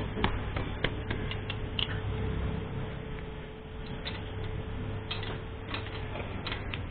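Ring spanner clicking and clinking against a head nut beside the spark plug on an old Royal Enfield Bullet's cast-iron cylinder head as the nut is worked loose: scattered sharp metal clicks, bunched in the first two seconds and again in the last two.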